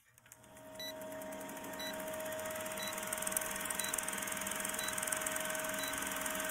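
Vintage film-countdown sound effect: a film projector's steady, fast clatter and hiss under a low hum, with a short high beep about once a second as the numbers count down.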